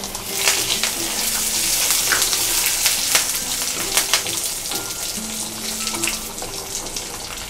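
Dried red chillies and curry leaves sizzling in hot oil as a tempering, stirred with a wooden spatula. The sizzle swells about two seconds in and eases toward the end, with a few sharp clicks.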